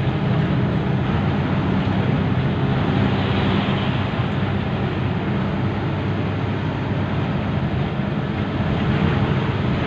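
Bus engine running steadily at highway speed, with road and wind noise heard from inside the bus cabin.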